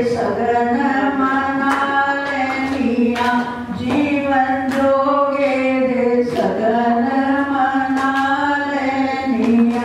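Women singing a traditional wedding song together in long, drawn-out held notes.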